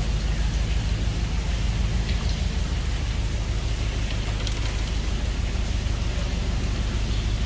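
A narrowboat's engine running steadily inside a brick canal tunnel, with water pouring and dripping from the leaky tunnel roof in a rain-like patter.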